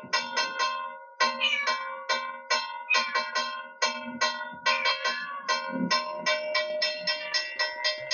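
A hand-held puja bell rung rapidly and steadily, about five strikes a second, its tone ringing on between strikes.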